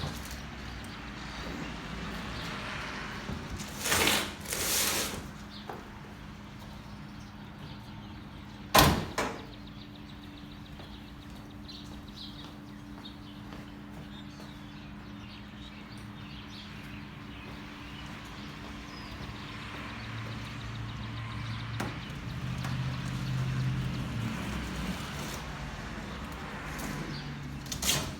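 Handling noises from unboxing a mower: two short scrapes, then a single sharp knock, over a steady low hum, with a low rumble swelling later and a short scrape near the end.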